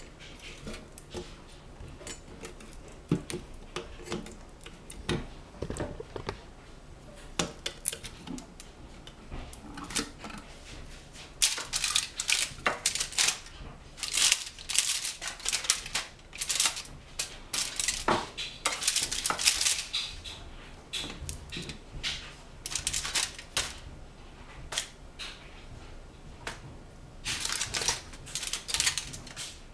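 Kitchen clatter: utensils, dishes and sticky fruit being handled, making sharp, irregular clicks and taps. Sparse at first, then busier and louder from about a third of the way in.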